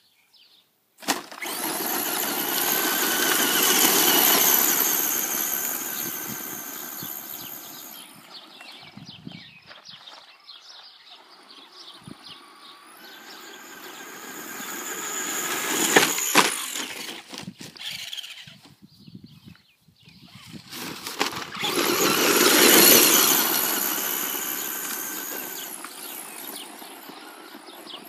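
Radio-controlled model truck driving fast on a gravel road, its motor making a high whine over the crunch of its tyres. It swells and fades three times as it runs toward and away from the listener, with a sharp clatter at the loudest point of the middle pass.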